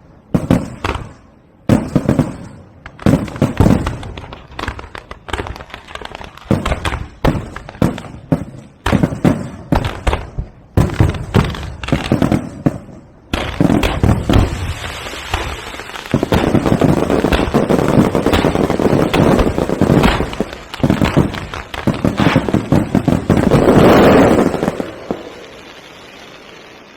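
Aerial fireworks going off: a rapid series of separate loud bangs, then a dense, continuous crackling barrage that builds to its loudest about 24 seconds in and then dies away.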